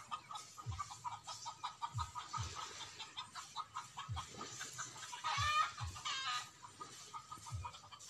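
Chickens clucking repeatedly, with one louder, longer call about five and a half seconds in.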